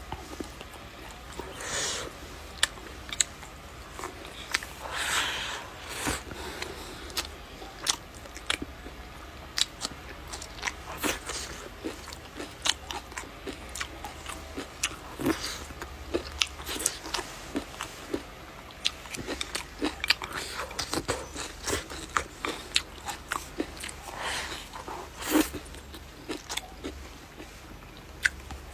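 A person eating close to the microphone: chewing and biting food, with many short sharp crunches and clicks at irregular intervals and a few louder chewing spells.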